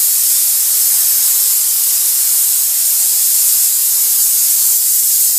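Steam cleaner nozzle jetting steam with a steady, loud hiss.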